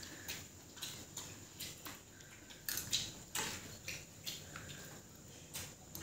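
People eating from plastic plates: irregular small clicks and taps, about two a second, from a metal spoon and fingers working rice and vegetables on the plates.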